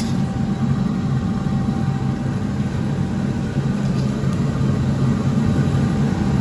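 A steady low mechanical hum or rumble, like a motor or fan running, with no clear strokes or changes.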